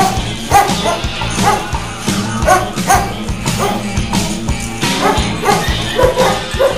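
Dogs barking repeatedly, about two barks a second, over music.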